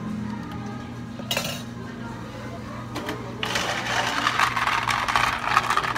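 A spoon stirring in a plastic cup, with a short rattle about a second in. Then, about three and a half seconds in, a dense clatter of ice cubes as ice is scooped from an ice machine's bin.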